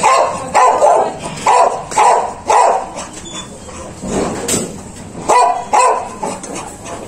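A small dog barking in short, repeated barks, about two a second for the first few seconds, then a few more spaced out after a short pause.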